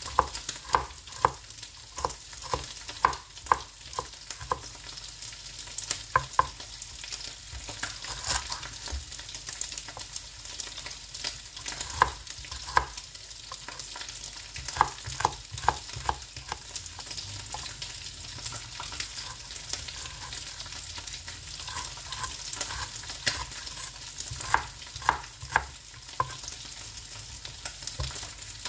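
Kitchen knife chopping on a plastic cutting board in runs of quick strokes with short pauses, over the steady sizzle of small anchovies frying in oil in a pan.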